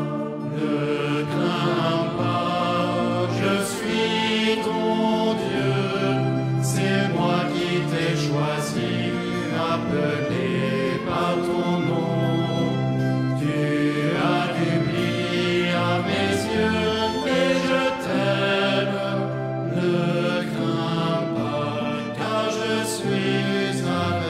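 A choir of mixed voices singing slowly, holding long notes.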